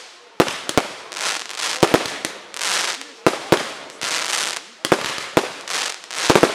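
Aerial fireworks display: sharp shell bursts about every second, each followed by a swelling crackling hiss as showers of white glittering stars burn out. Near the end comes a quick cluster of several bangs.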